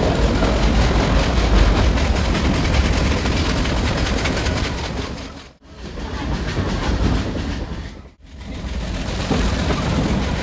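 Nilgiri Mountain Railway toy train running, a steady low rumble with rattling wheel-on-rail noise. The sound drops out briefly twice, a couple of seconds apart.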